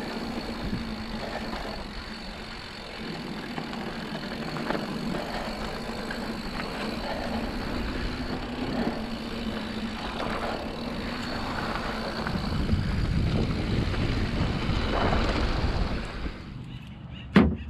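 Mountain bike rolling down a dirt trail on knobby Maxxis tyres (Assegai front, DHR II rear): steady tyre rumble on dirt mixed with bike rattle and wind on the microphone. The riding noise drops away near the end, and a single sharp knock follows.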